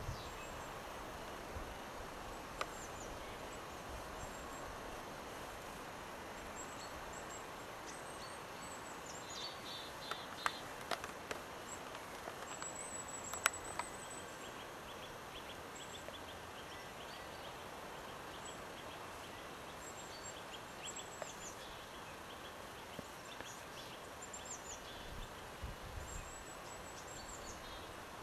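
Steady faint forest background hiss with small birds calling in short, high chirps at intervals, and a few sharp clicks around the middle.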